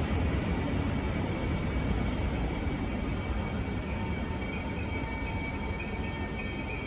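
SNCB passenger coaches rolling along the track beside the platform: a steady rumble of wheels on rail with faint, steady high-pitched tones, slowly getting quieter.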